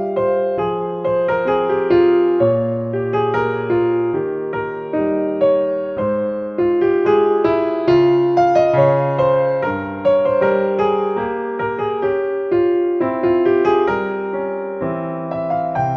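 Background solo piano music: an allemande, with several notes sounding at once and a steady flow of short notes.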